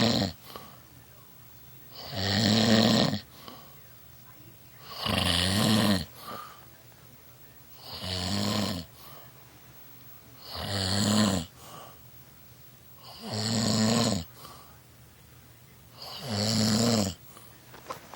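A man snoring in his sleep: six long, rasping snores, one about every three seconds, each lasting about a second, with a short softer sound after each one.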